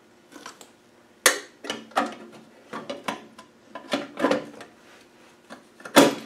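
A string of short knocks and clatters as a heater blower motor with its plastic squirrel-cage fan is handled and fitted into a plastic heater housing, with a sharp knock about a second in and the loudest knock just before the end.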